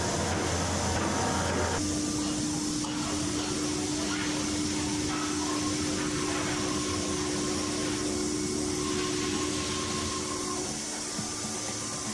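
Steady mechanical hum and hiss of an automated bar feeder and machining cell running. A steady whine sets in about two seconds in and weakens near the end.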